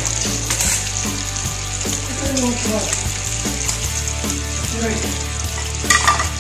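Fish frying in hot oil in a wok, sizzling steadily.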